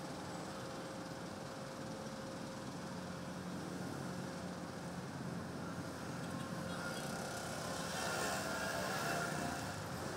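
Traffic on a busy city street: a steady mix of car and motorbike engines and tyre noise. About seven seconds in it grows louder for a few seconds as a vehicle passes close by.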